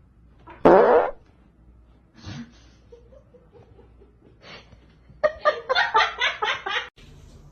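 A short, loud blurting sound about a second in, then a person laughing in quick rhythmic bursts for nearly two seconds.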